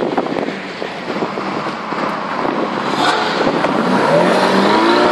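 Ferrari V8 sports cars pulling away: a low engine rumble broken by short crackles, then about three seconds in an engine revs up close by, its pitch rising as the car accelerates.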